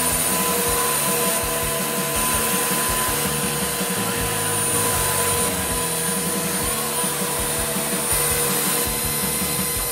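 Stihl MSE 170 C electric chainsaw running steadily, its motor whining as the chain carves into wood.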